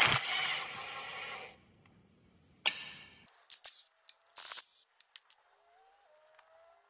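Metal-on-metal work with a hand tool prying out the outer seal on a Case 310G dozer's final drive shaft. It opens with a sharp clank, then about a second and a half of scraping. A second clank comes near the middle, followed by a few quick clicks and a short scrape.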